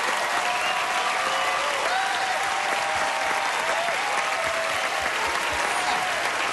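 Studio audience applauding, a steady mass of clapping with scattered cheers and whoops rising and falling over it.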